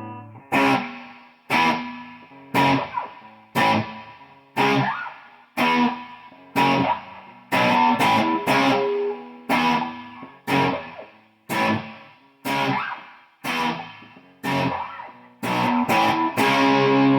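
Fernandes electric guitar played through an amplifier: single chords struck about once a second, each ringing out and fading before the next, with a few quicker strums and a chord held near the end.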